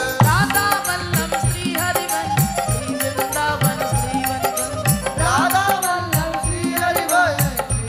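Devotional kirtan music: a woman singing over a hand drum keeping a steady beat, with held instrumental tones beneath.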